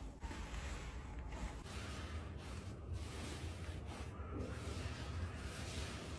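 Slime being squeezed and worked by hand: a steady soft squishing noise with small swells and dips.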